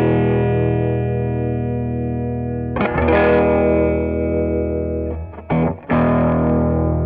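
Electric guitar chords strummed and left to ring through a StewMac Ghost Drive, a Klon-type overdrive pedal, set to a soft, low-drive tone. A new chord is struck about three seconds in, and another near the end after a brief muted stop.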